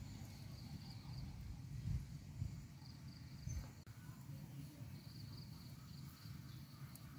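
Faint outdoor ambience: insects chirping in a high, pulsing trill that comes and goes, over a low steady rumble.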